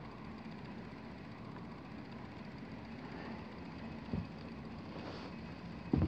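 Steady low hum of HVAC indoor air handler blowers running, with a single soft knock about four seconds in.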